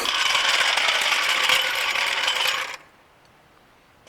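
Metallic rattling and scraping, loud and continuous for nearly three seconds, then stopping abruptly.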